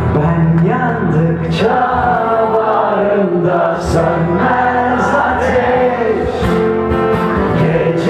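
Live acoustic music: a man singing into a microphone over strummed acoustic guitar.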